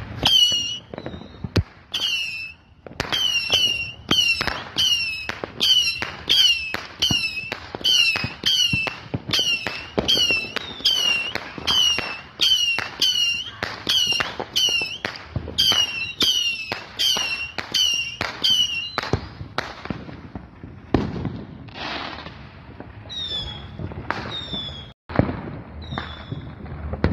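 Saturn missile battery firing its small whistling rockets in quick succession, about two a second, each a short falling whistle with a crack. After about nineteen seconds the volley thins out to a few more whistles and scattered bangs.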